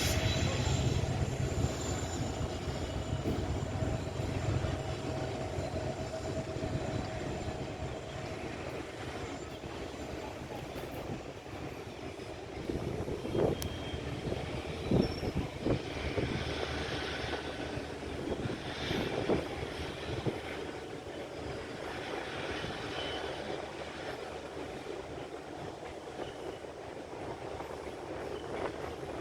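WDG-4D diesel-electric locomotive pulling a heavy goods train: a deep engine hum with a high whine, strongest in the first few seconds and fading as it moves on. The wagons keep rolling past with scattered wheel squeals and clanks, mostly in the middle of the stretch.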